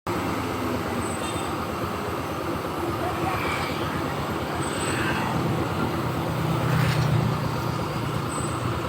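Road traffic with a large bus passing close by: its engine's low drone swells to a peak about seven seconds in, then eases off.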